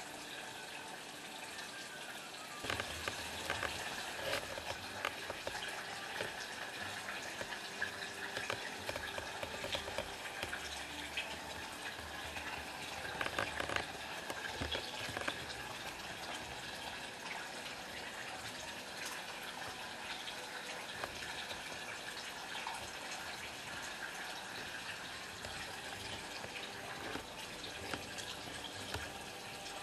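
Water in a koi pond splashing and trickling, with many small crackles. It grows louder about three seconds in.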